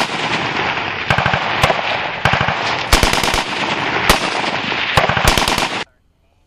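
Machine-gun fire on a firing range: several guns rattling off overlapping bursts, with louder single reports standing out, stopping abruptly about a second before the end.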